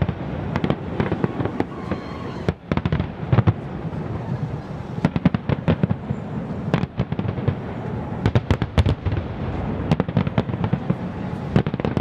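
Aerial fireworks display: many shells bursting in quick succession, with sharp bangs over a continuous rumble and crackle.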